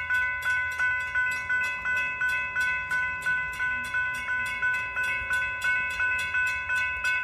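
Railroad crossing warning bell ringing at an even pace, about three strikes a second, as the crossing gates lower for an approaching train.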